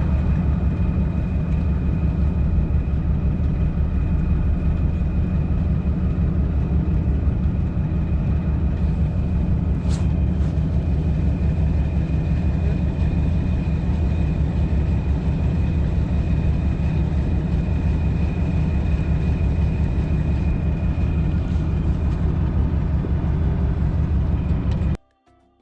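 Fishing boat's engine running steadily underway: a heavy low drone with a thin, steady whine above it, cutting off suddenly near the end.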